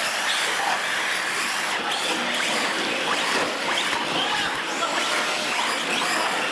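Small electric R/C UTV trucks racing on a concrete floor: motor whines sliding up and down with tyre noise, over a steady background noise.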